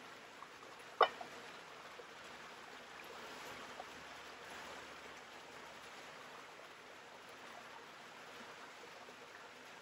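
Faint steady sizzling of a thin-sliced steak on the hot griddle over a wood fire, with one sharp click of metal grill tongs about a second in.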